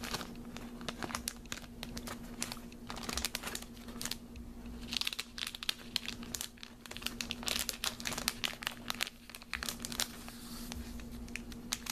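Cardboard box set and paper art cards being handled and put back together: rustling, sliding and many small taps and clicks of card on card, with a few longer rustles.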